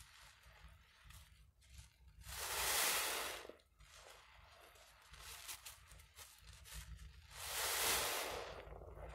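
Foam-soaked sponges squeezed by hand: two long hissing squelches of lather, about five seconds apart, with a soft crackle of bursting bubbles between them.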